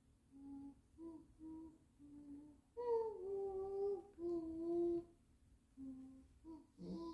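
A person humming a tune with the mouth closed: a few short notes, then longer, louder held notes in the middle, then short notes again.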